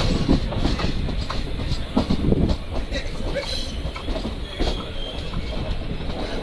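Train running along the track: a steady low rumble with irregular clicks and clatter from the wheels on the rails.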